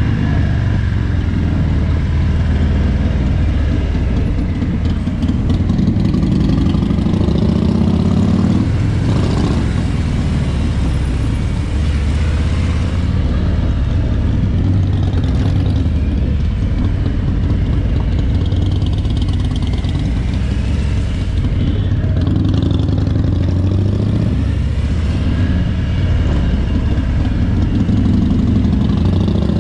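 Harley-Davidson Road King's Milwaukee-Eight 107 (1745 cc) V-twin running under way, heard from the rider's seat. Its note rises and falls with the throttle.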